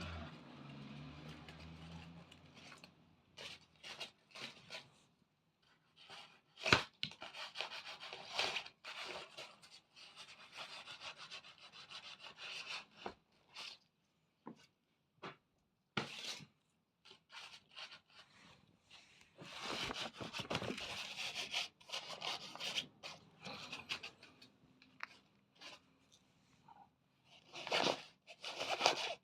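Irregular bursts of rustling and scraping as a cat plays with a cat tunnel and a teaser wand, with one sharp tap about seven seconds in.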